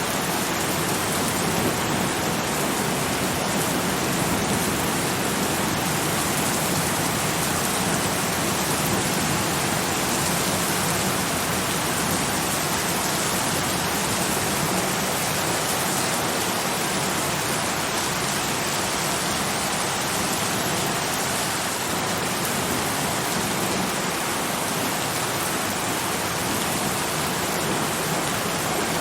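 Steady heavy rain falling, a dense even hiss of drops without distinct individual patters or thunder.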